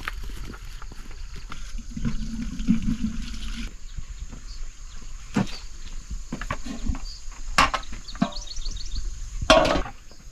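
Footsteps on dirt and the knocks of a plastic bucket being carried and set down, a few separate knocks with the loudest near the end.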